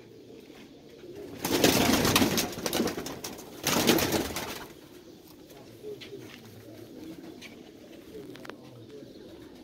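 Pigeon wings flapping hard in two loud flurries, about a second and a half in and again near four seconds, as a wide-tailed pigeon is caught by hand. Afterwards quieter, with pigeons cooing softly.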